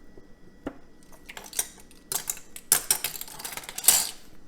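Kitchen utensils and containers handled on a countertop while measuring sauce ingredients: a string of light clinks and clatters, the loudest about two thirds of the way through.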